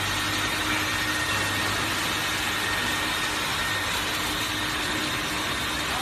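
Three-phase heavy-duty industrial vacuum cleaner with a 3.0 kW turbine motor running steadily: a constant whine over rushing air.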